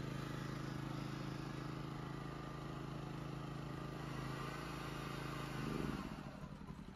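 Westinghouse WH2200iXLT inverter generator's 79cc engine running steadily while powering a hair dryer, then about six seconds in it rises briefly and cuts out: the generator shutting down under load.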